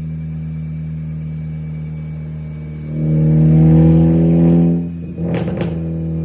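Honda Civic Type R FL5's 2.0-litre turbocharged four-cylinder idling through an RSE Type-D titanium exhaust, blipped once about three seconds in and held for about two seconds. Two sharp cracks follow as the revs drop back to idle.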